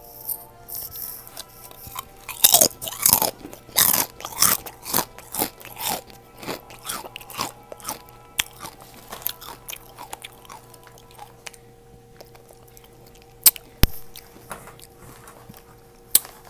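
Close-up crunching and chewing of kettle-cooked potato chips: a quick run of crisp crunches a couple of seconds in that thins out after several seconds, then a few sharp isolated clicks near the end.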